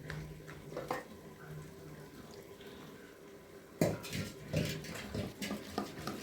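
A run of irregular knocks and clatters starting about four seconds in, after a quieter stretch with a single click near the first second.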